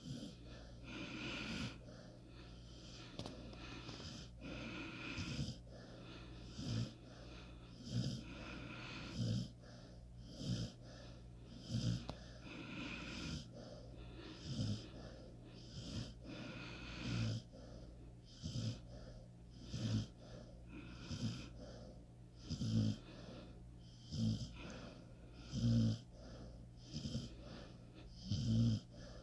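Pit bull snoring in its sleep, a wheezy snore on each breath, about one every second and a half.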